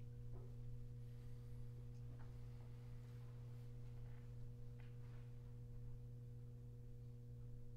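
A pause in the playing: a steady low hum fills the quiet room, with a few faint clicks and small shuffles scattered through it.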